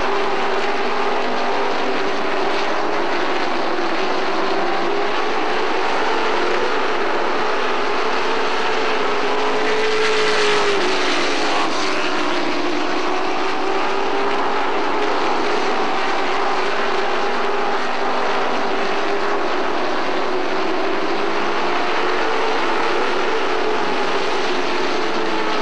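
A field of pro racing trucks' crate V8 engines running at speed, a steady drone whose pitch wavers as trucks go by, with one sharp rise and drop in pitch about ten seconds in.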